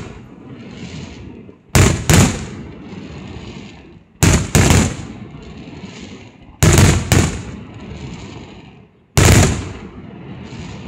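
Aerial firework shells bursting: four loud bangs about two and a half seconds apart, the first three each a quick double bang. Each is followed by a fading rumble and crackle.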